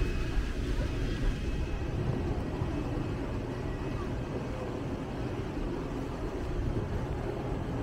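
Steady low rumble of city street traffic.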